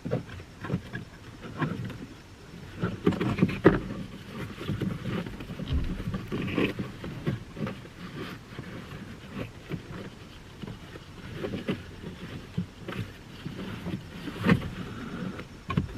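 Hands working the plastic cabin air filter housing behind a pickup's glovebox: irregular clicks, light knocks and rustling of plastic and filter.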